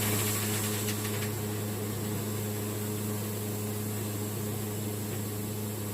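Portable band sawmill running steadily, its engine giving a constant hum with a steady high hiss over it that stops near the end.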